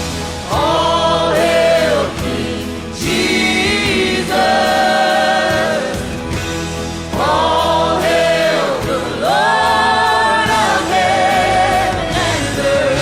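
Christian worship song with a choir singing long held notes over a steady band accompaniment.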